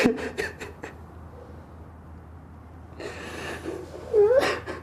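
A man crying: a few short sniffs and gasping breaths, a quiet pause, then a shaky intake of breath and a short whimpering sob near the end.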